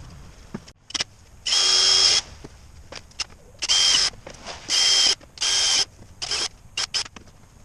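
Handheld power drill whirring in about five short bursts, the first the longest, then a few quick blips near the end.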